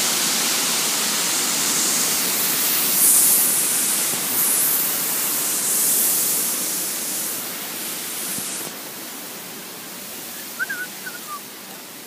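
Waterfall, a steady rush of falling water. It drops noticeably quieter and duller about two-thirds of the way through.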